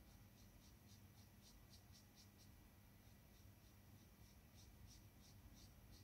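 Faint, quick strokes of a round watercolour brush on watercolour paper, about four a second, pausing briefly about halfway through, over a low steady room hum.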